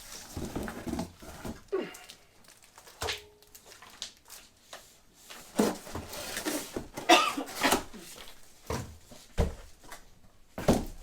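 Irregular knocks, clunks and rattles of the metal parts of an Einhell MSS 1610 mitre saw stand being handled during unboxing, with a few short pitched squeaks or sounds in between.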